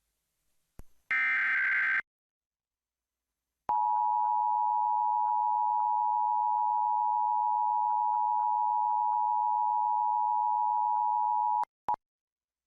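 Emergency Alert System broadcast signals: a short burst of SAME header data tones about a second in, then the EAS two-tone attention signal held steady for about eight seconds before it cuts off sharply.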